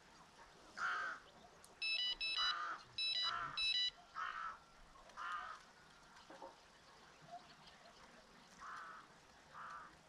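A bird gives a series of short, harsh, crow-like calls, about seven of them spread over the few seconds with a pause in the middle. Between about two and four seconds in, a quick run of short, high, steady-pitched beeps cuts in.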